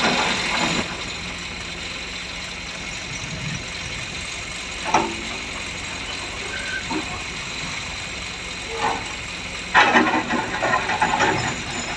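Excavator's diesel engine running steadily, with a brief clatter about five seconds in and a louder burst of clattering and knocks near the end.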